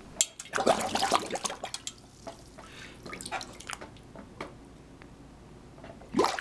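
Water splashing and dripping in a stainless steel mixing bowl as a face is pushed down into it: a busy run of splashes in the first couple of seconds, then scattered drips and small splashes. A short, louder sound comes just before the end.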